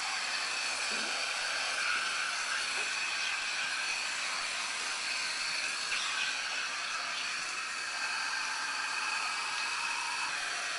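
Bathtub tap running steadily, a constant rushing hiss of water.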